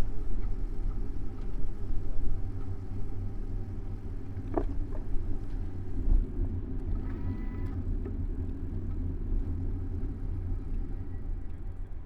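Steady low rumble of a bicycle ride through city streets, with road noise and vehicle traffic picked up by a bike-mounted camera. There is a sharp click about four and a half seconds in and a short tone about seven seconds in.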